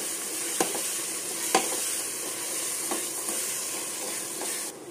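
Mutton keema and sliced onions sizzling in hot oil in an aluminium pressure cooker while being stirred with a spatula, which knocks against the pot three times. The sizzle cuts off just before the end.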